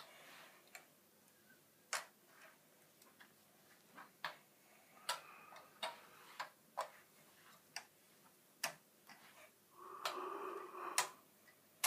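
Plastic LEGO pieces of a Millennium Falcon model clicking and snapping as its hinged panels are closed: about a dozen faint, sharp clicks at irregular intervals.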